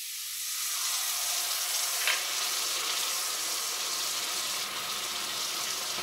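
Hot, freshly cast copper ingot quenching in a metal pan of water: a steady sizzling hiss as the water boils into steam around it.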